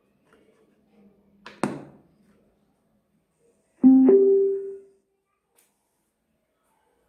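Small homemade Bluetooth speaker with two 3 W drivers being switched on: a sharp pop about a second and a half in, then a short rising two-note start-up tone from the drivers about four seconds in.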